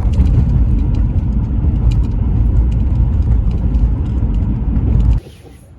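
Car on the road: a loud, steady low rumble of road noise that cuts off suddenly about five seconds in.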